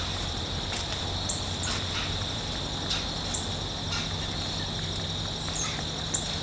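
Steady chorus of field insects, a continuous high drone with a fast pulsing trill above it, with short high chirps scattered through.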